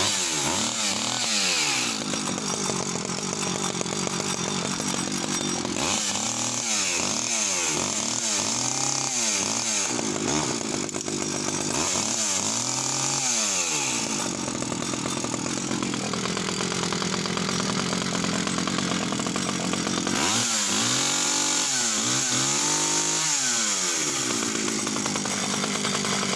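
Stihl 009 top-handle chainsaw's small two-stroke engine running with the choke off, idling steadily between clusters of quick throttle blips that rev it up and let it fall back, several revs at a time, four times over.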